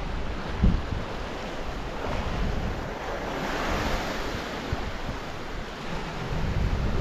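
Sea surf washing against a rocky shore, with wind rumbling on the microphone. A wave swells up about halfway through, and there is a single dull thump shortly after the start.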